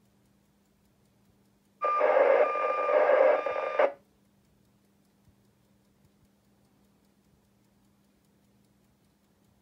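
KAITUO 1B satellite's 9k6 GMSK data downlink coming out of a Motorola Syntor X VHF FM radio's speaker as a harsh, buzzing data burst about two seconds long. It cuts in about two seconds in and cuts off just as suddenly. This is the satellite's downlink jamming a 2 m amateur simplex channel.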